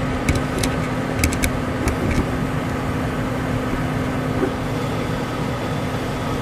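A motor running with a steady hum, with a few light sharp clicks in the first two seconds.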